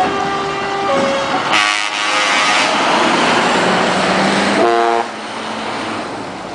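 Truck air horns sounding a few notes that change pitch about a second in, then loud engine noise for about three seconds as a tractor unit with trailer drives past, and another short horn blast near the five-second mark before the sound drops to a quieter engine noise.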